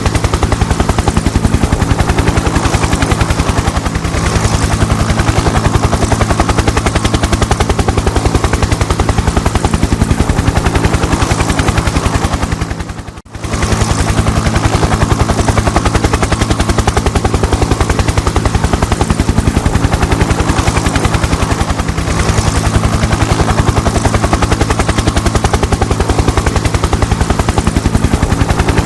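Helicopter rotor chopping steadily, a fast, even beat of blade slaps over a steady engine hum. About halfway through it dips out for a moment and comes straight back.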